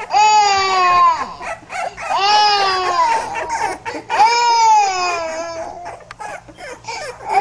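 Young pit bull puppy crying: three long wails about two seconds apart, each sliding down in pitch, with fainter squeaks in between.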